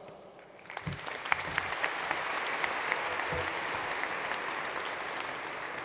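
Audience applauding: the clapping starts a little under a second in, builds over the next couple of seconds, then holds steady.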